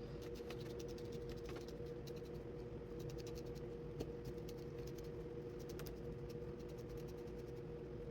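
Fine, irregular crackling and scratching of locked hair being worked and pulled apart by hand, with one small sharp click about four seconds in, over a steady low hum.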